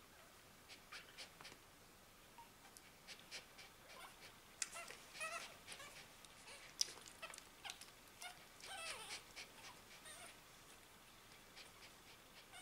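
Newborn puppies nursing, making faint squeaks and small whimpers among soft clicking suckling sounds, busiest in the middle.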